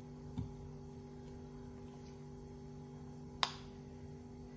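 A metal spoon clinks sharply once against a ceramic bowl while scooping melted chocolate mixture, about three and a half seconds in, with a softer knock near the start, over a faint steady hum.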